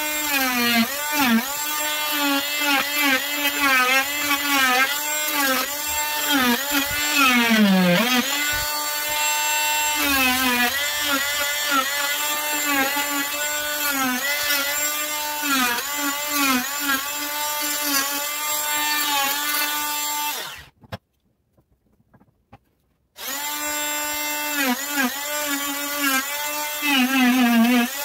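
Wesco oscillating multi-tool carving wood, its whine dipping in pitch again and again as the blade is pressed into the workpiece. It cuts off about two-thirds of the way through, is silent for about two seconds, then starts up again.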